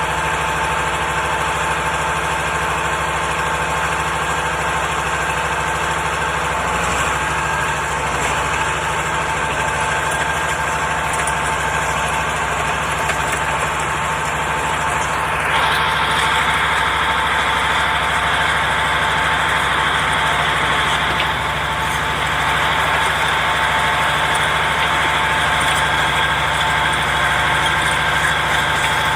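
A bulldozer's diesel engine running steadily, with a constant drone and a whine. About halfway through the tone shifts: the hiss at the top drops away and the middle gets a little louder.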